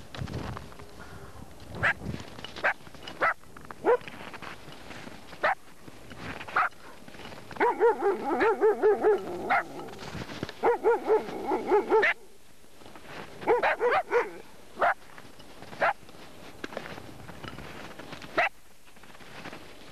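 A dog barking in three runs of quick repeated barks in the middle, with separate single barks before and after.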